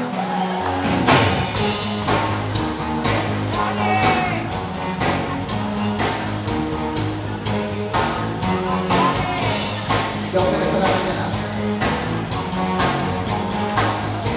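Live rock band playing, with drum kit and electric guitars; the band comes in hard with a drum hit about a second in, then keeps a steady beat.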